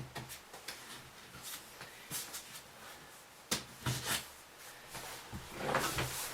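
Scattered light clicks and knocks of things being handled in a small room, with a sharper knock about three and a half seconds in and another half a second later.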